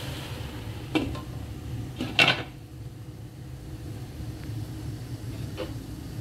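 Glass lid being set on a metal cooking pot to cover the curry: a light clink about a second in and a louder, ringing clink a little after two seconds, then a faint tap near the end, over a steady low hum.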